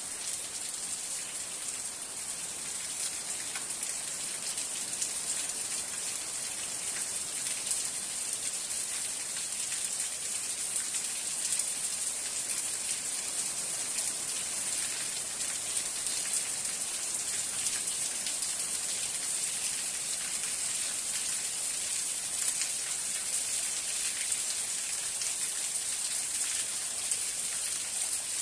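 Steady rain falling, a dense hiss of many drops pattering on a surface with fine individual drop ticks throughout.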